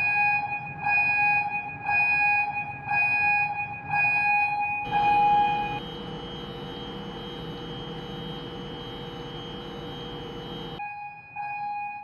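Steering gear phase-failure alarm going off, set off by pulling the phase-failure relay's fuse: a loud pulsing beep about once a second. From about five seconds in, a steadier alarm tone sounds over an even background noise, and near the end the pulsing beeps return.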